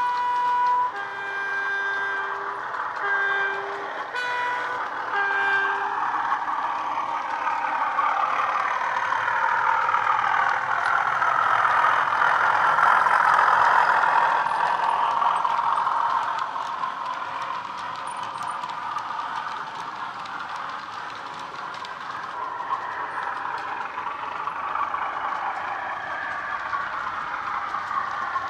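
Model locomotive sound decoder playing a Class 31 diesel through a small speaker. A two-tone horn sounds several times in the first six seconds. Then the diesel engine sound swells to its loudest about halfway through, with shifting tones, and eases back.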